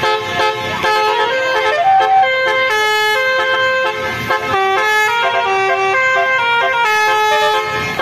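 Basuri 'telolet' musical horn on a vehicle playing a melody: a continuous run of quick stepped horn notes, several tones sounding together.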